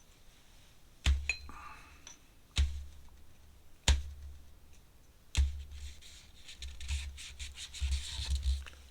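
Art materials being handled on a desk: four sharp knocks, about a second and a half apart, then a quicker run of light taps and rubbing.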